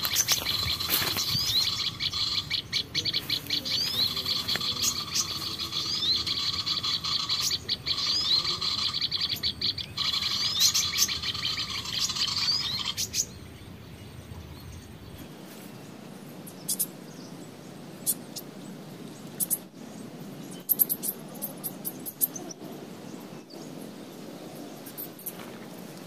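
Small-bird chirping call played from an MP3 lure speaker, a fast, dense run of short upward-sweeping notes that cuts off about halfway through. After that come a few scattered clicks and faint chirps.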